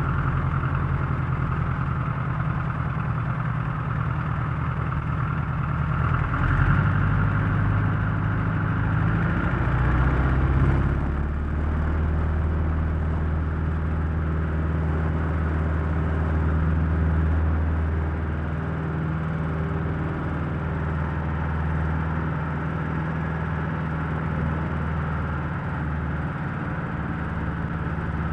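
Single-propeller airplane engine running after start-up, heard from outside the aircraft: a steady idle that swells briefly about six and ten seconds in, then settles to a lower, even idle.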